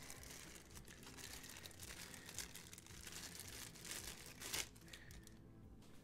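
Thin clear plastic bag crinkling as a coiled cable is pulled out of it, an irregular crackle with a few louder rustles in the middle.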